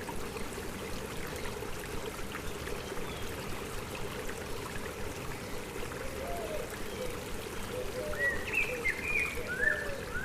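A stream running steadily, with short bird chirps joining about six seconds in and growing louder near the end.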